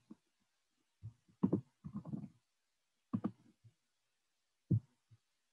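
Keyboard and desk taps picked up through a video-call microphone: short, soft knocks in a few small clusters, with dead silence between them.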